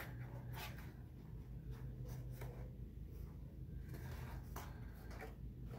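Cardstock being handled and folded by hand: faint rustling and rubbing with a few brief scrapes, over a steady low hum.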